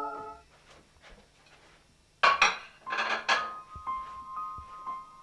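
A sustained music chord cuts off just after the start. About two seconds in, a plate is set down on a side table with a few short clinks and clatters of crockery. Faint, high, steady music notes follow.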